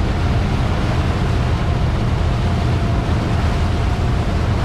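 A motorboat under way: steady wind buffeting the microphone and the rush of the churning wake, with the boat's engine running underneath.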